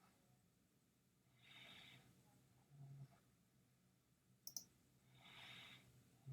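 Quiet room with two soft breaths and a brief low hum, and a sharp double click about four and a half seconds in from a computer mouse.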